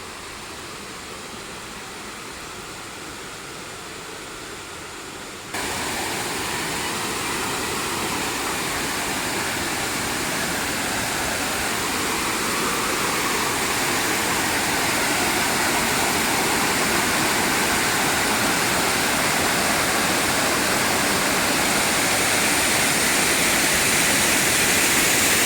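Waterfall in monsoon flow, a steady rush of falling water. It is fainter at first, jumps abruptly louder about five seconds in, then slowly grows louder.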